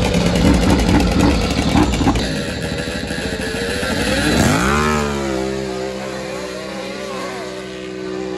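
ATV engines. One runs loudly up close for the first two seconds. After a break, a drag-racing quad revs up in a rising sweep about four to five seconds in and holds a steady high-revving note as it pulls away down the dirt strip.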